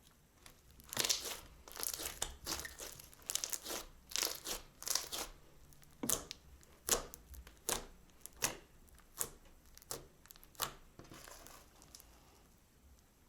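Crunchy slime being squeezed and pressed by hand, giving irregular crackling crunches and pops that thin out near the end.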